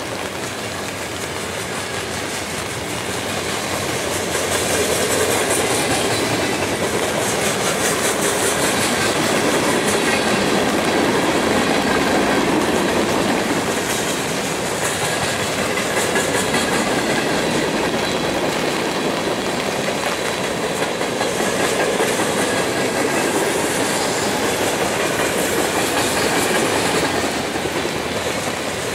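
Freight cars of a long mixed freight train (tank cars, covered hoppers, boxcars) rolling past, their steel wheels clattering on the rails in a steady rush that swells and eases slightly.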